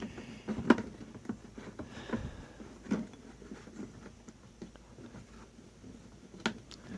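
A few scattered light clicks and knocks from handling containers and parts, over a faint steady hiss.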